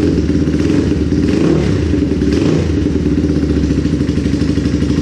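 Old Honda XR dirt bike's four-stroke single-cylinder engine running loud through an aftermarket exhaust, mostly at a steady idle, with a short rise in revs about one and a half to two and a half seconds in.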